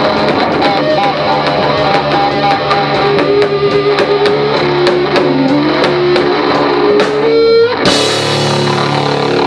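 Live rock band playing: drums with a steady run of cymbal strokes under electric guitar. About seven seconds in, a pitch glide falls away, then a held chord rings on.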